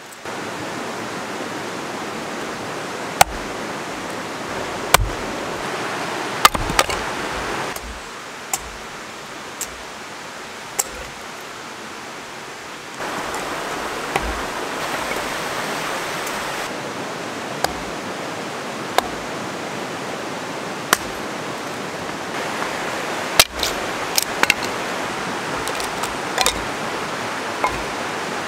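Steady rush of a rocky creek flowing over stones, its level stepping down and back up once, with scattered sharp knocks and clicks over it.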